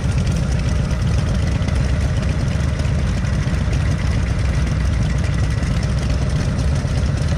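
Motorcycle engine running with a steady, low pulsing rumble.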